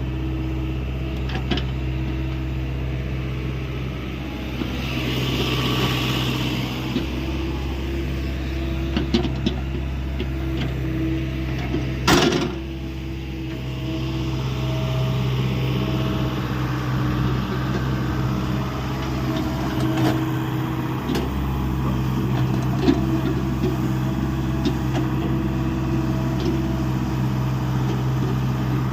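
Hyundai 85A excavator's diesel engine running steadily under load, with scattered knocks and clicks from the machine at work and one loud knock about twelve seconds in.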